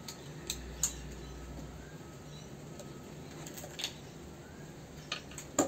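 A few light clicks and clinks of small circuit-board parts being handled while an HID lighting ballast is pulled apart, with a sharper pair of clicks near the end.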